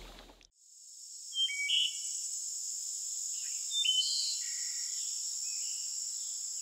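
Steady high-pitched insect drone, with a few short bird chirps over it, the loudest about a second and a half and four seconds in.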